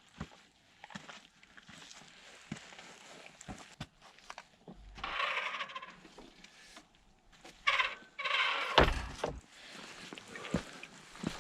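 Footsteps on a hill path, a short knock with each step. Louder noisy bursts break in about five and eight seconds in, with a heavy low thump just before nine seconds.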